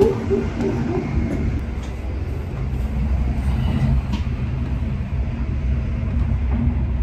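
Steady low rumble inside a moving double-decker passenger train: the wheels and running gear heard through the carriage, with a few faint clicks.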